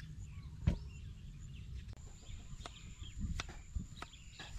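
A sharp knock about a second in, then a kitchen knife cutting a carrot on a wooden board in a few short chops, with birds chirping and a steady high whine behind.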